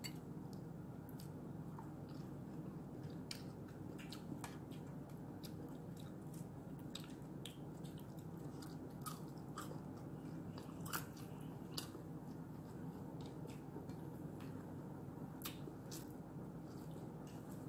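Faint sounds of eating by hand: chewing, with scattered soft clicks of fingers and a fork against plates and a bowl, over a steady low background hum.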